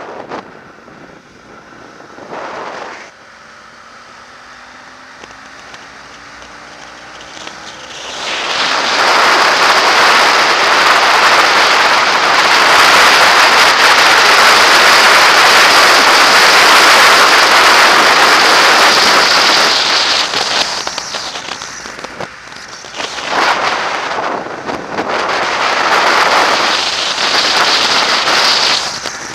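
Motorcycle ride recorded on a bike-mounted camera. The engine note climbs slowly in pitch through the first several seconds. From about eight seconds in, a loud, crackly wind rush over the microphone drowns everything, easing and surging again toward the end.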